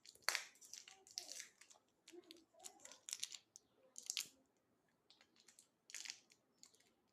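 Plastic wrapper of a small white chocolate being torn open and crinkled by hand, in short irregular crackles about a second apart.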